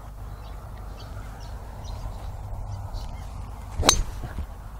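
A golf iron strikes a teed ball in a full swing: one sharp crack about four seconds in, with a fainter tick just after. Before it there is only a low, steady outdoor background.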